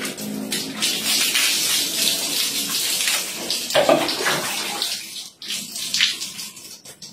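Water poured from a plastic dipper over a person and splashing onto a tiled floor, in a bucket bath. A heavier splash about four seconds in as the dipper scoops more water, a quieter moment, then shorter splashes as the pouring starts again near the end.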